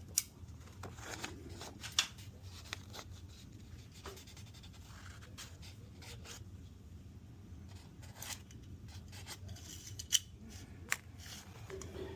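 Fine-grit sandpaper rubbed by hand on the steel of a 1911 pistol part in light polishing strokes, with a few sharp clicks scattered through, over a low steady hum.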